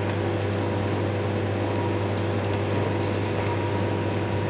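Steady low machine hum: a deep drone with a few fainter, higher steady tones.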